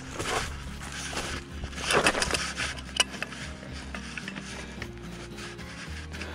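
Background music with a steady bass, over scraping and rustling of hands and tools working at a stuck filter housing on a mini excavator, with a sharp metallic click about three seconds in.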